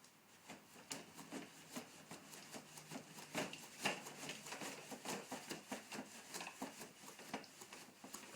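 A rapid, irregular run of small clicks and taps, several a second, starting about half a second in and stopping near the end.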